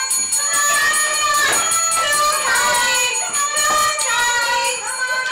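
Background music with a pitched melody that steps and glides.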